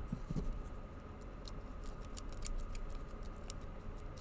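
Lock-picking tools clicking in the keyway of a Master Lock M5 padlock: scattered light metallic clicks and taps, several a second at times, over a faint steady hum.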